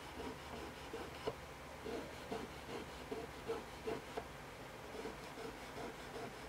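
A cloth rubbing quickly back and forth along an unstrung guitar fretboard and over its metal frets, about two or three strokes a second, with a few light clicks.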